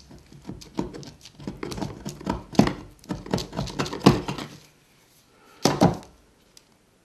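Wood chisel scraping half-dry glue squeeze-out off an oak block: a run of short, irregular scrapes for about four and a half seconds. After a pause, one sharper knock as the chisel is set down on the bench.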